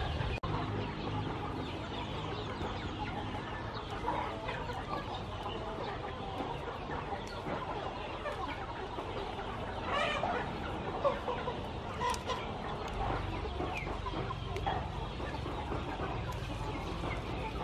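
Chickens clucking now and then, with a few louder calls about ten and twelve seconds in.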